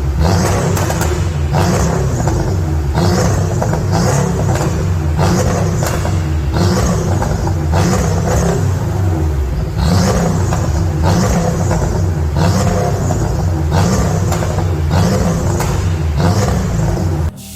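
Porsche 718 Boxster S turbocharged flat-four revved repeatedly through a gutted, straight-through muffler, with throttle blips about once a second. The revving cuts off sharply just before the end.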